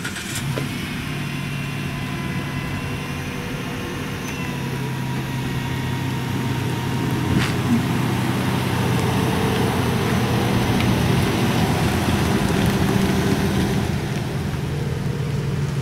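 Road vehicle engine running at a steady low hum, swelling slightly toward the middle, with one sharp click about seven seconds in.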